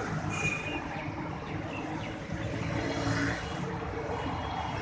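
Road traffic noise: a steady rumble of passing vehicles.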